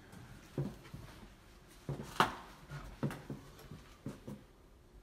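Footsteps and knocks in an empty room: irregular thuds, the loudest a sharp knock a little after two seconds in.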